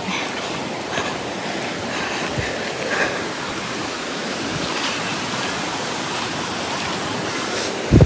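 Steady rush of water from a waterfall cascading over rock.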